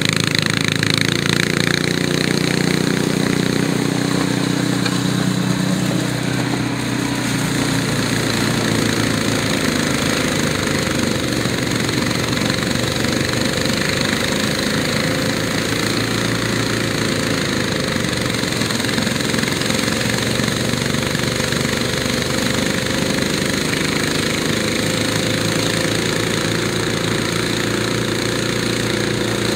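Small gasoline engine of a robotic snow blower running steadily while the blower throws snow out of its chute. A pitched hum in the first few seconds gives way to a rougher, noisier sound about six seconds in.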